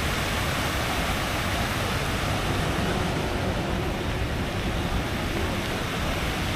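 Musical fountain's water jets spraying and splashing down into the lake: a steady rushing hiss, with a low rumble underneath.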